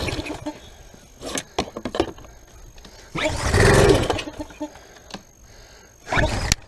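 Briggs & Stratton small engine on a pressure washer being pull-started twice, about three seconds apart, each pull turning it over for under a second without it keeping running. The owner blames a fuel problem that the Sta-Bil fuel treatment might have made worse.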